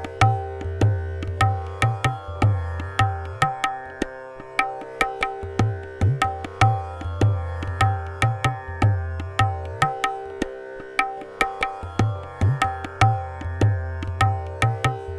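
Tabla playing the sixteen-beat Addha taal theka at about 150 beats a minute over a steady tanpura drone tuned to C. Twice, the deep bayan strokes drop out for a few beats while the higher dayan strokes carry on: this is the khali section of each cycle.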